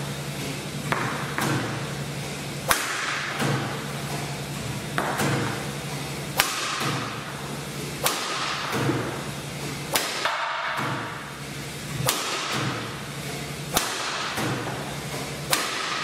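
Li-Ning Windstorm 72 badminton racket striking shuttlecocks over and over: about a dozen sharp smacks, irregularly spaced roughly a second apart, over a steady hiss.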